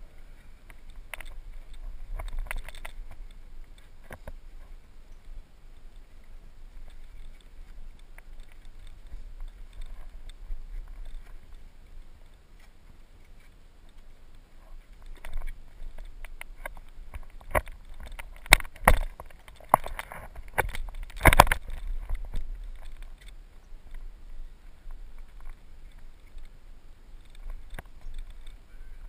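Wind rumbling and handling noise on a body-worn GoPro as the hiker scrambles over sandstone, with scuffing steps. A cluster of sharp knocks and clicks comes about two-thirds of the way through.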